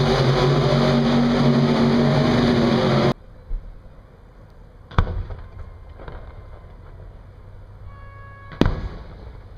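A loud, steady engine-like running noise cuts off suddenly about three seconds in. In the quieter stretch that follows, fireworks go off twice, sharp bangs about three and a half seconds apart.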